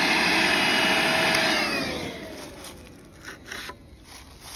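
Makita hammer drill running steadily as it drills into a concrete slab, then its motor winds down, falling in pitch, about one and a half seconds in. A few light knocks follow near the end.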